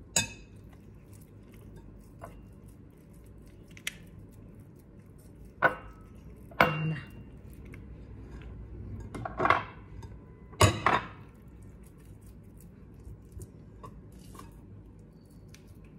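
Metal spoon clinking and scraping against a glass mixing bowl while scooping ground meat filling: about six sharp clinks at uneven intervals, a few with a short ring.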